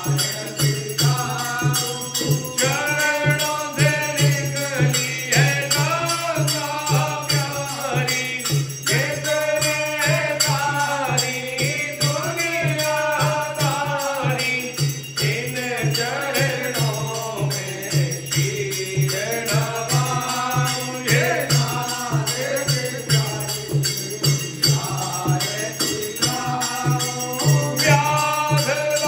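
Devotional aarti hymn sung over a fast, steady beat of ringing bells and jingling percussion.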